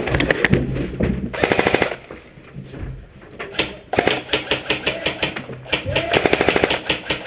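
Airsoft rifles firing full-auto in rapid bursts of clicks: a short burst about a second in, then longer, near-continuous bursts from about four seconds on.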